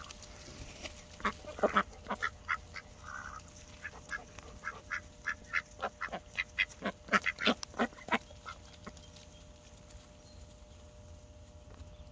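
Mallard ducks giving a quick run of short quacks while feeding, about two to three a second from about a second in, thinning out and stopping after about eight seconds.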